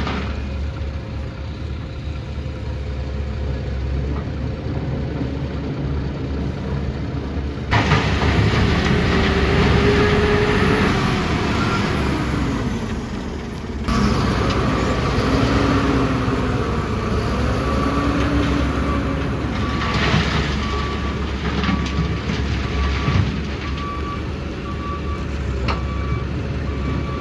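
Heavy diesel construction machinery running, its engine note rising and falling as it works, with two sudden louder surges in the middle. In the last third a reversing beeper sounds at about one beep a second.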